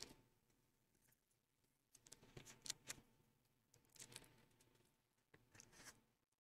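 Near silence with faint rustles and small clicks from handling a nail polish strip and its backing, in three short clusters.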